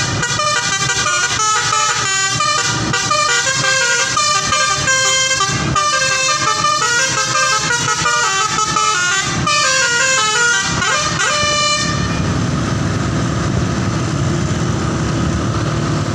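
A bus's 'telolet' multi-tone air horn playing a fast melody of quickly changing notes. About twelve seconds in the horn stops, leaving the steady noise of the bus engine running.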